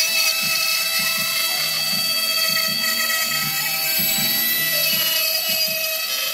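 CNC milling spindle running with an end mill cutting a metal block, a steady whine of several tones over cutting noise.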